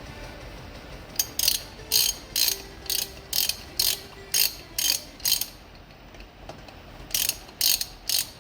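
Hand ratchet clicking in repeated short back-strokes, about two a second, as the front fork's axle pinch bolts are loosened. There is a pause of about two seconds past the middle, then a few more strokes.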